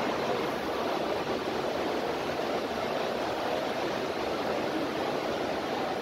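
Steady, even rushing background noise of a large hall, with no distinct events.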